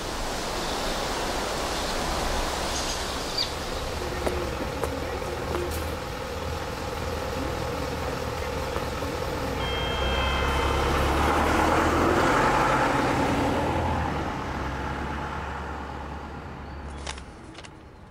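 Outdoor street noise: steady traffic sound, swelling as a vehicle passes about ten to fourteen seconds in, then fading.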